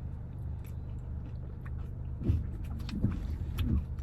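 Someone chewing a smoothie bowl, with small mouth clicks and a few short low vocal sounds in the second half, over the steady low hum of a car's cabin.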